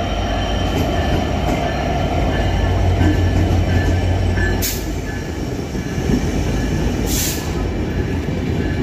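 Passenger train rolling slowly past: the diesel-electric locomotive's engine rumble is strongest in the first half. After that the coaches roll by with wheel noise and a faint squeal. Two short sharp hisses come about halfway and again near the end.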